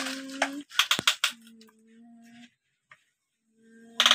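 Battery-powered toy excavator's small electric motor and plastic gears whirring at a steady pitch, stopping and starting several times in short runs. A few sharp clicks come about a second in.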